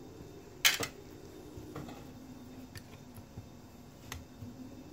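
A few small sharp clicks and clinks from tiny screws and hard parts of a 1/10-scale RC rock crawler being handled by hand. The loudest click comes about half a second in, with fainter ones spread through, over a faint steady hum.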